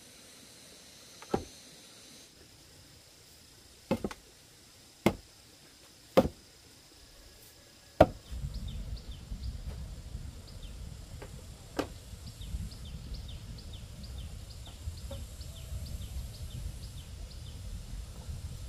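A handful of sharp, irregularly spaced knocks of wood being struck while a log frame is put together. From about eight seconds in there is a steady low rumble with a quick, repeated high chirping over it.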